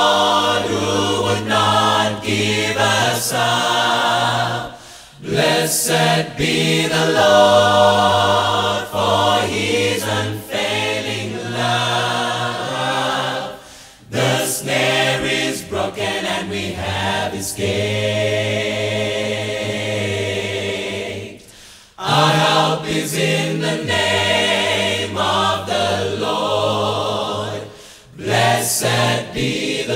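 Large mixed gospel choir of men's and women's voices singing in harmony, in long phrases with a short break between them about every six to eight seconds.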